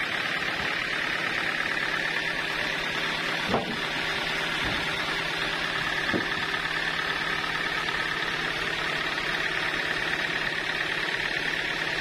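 Sawmill machinery running steadily without cutting, an even hum with a constant tone. Two short knocks stand out, about three and a half and six seconds in.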